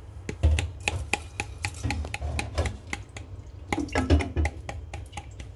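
Chopped raw chicken pieces being stirred and tossed with seasoning in a stainless steel mixing bowl, with irregular clicks and knocks against the metal bowl.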